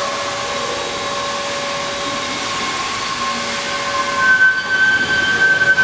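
The River Don Engine, a Davy Brothers three-cylinder single-expansion steam engine built for rolling armour plate, running under steam with a steady hiss and a few held tones. A little after four seconds in the sound grows louder and rougher and a higher steady tone comes in.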